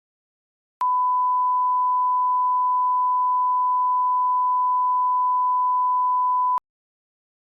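A single steady, pure electronic beep tone, held for about six seconds, switching on and off abruptly with a faint click at each end.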